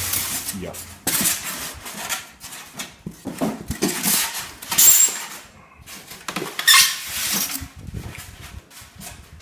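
Polystyrene foam packing being pulled out of a cardboard box: foam scraping and rubbing against cardboard in irregular bursts, with a brief high squeak about five seconds in.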